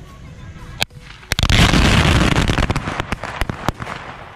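Bijli bomb and hunter firecrackers packed into a plastic soda bottle going off: a single sharp bang a little under a second in, then a loud, dense burst of rapid crackling for over a second, trailing off into a few separate bangs.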